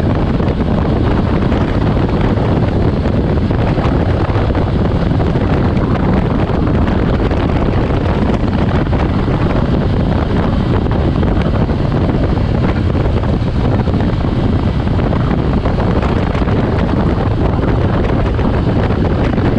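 Loud, steady wind noise on the microphone of a motorcycle at speed, with the bike's engine and road noise under it.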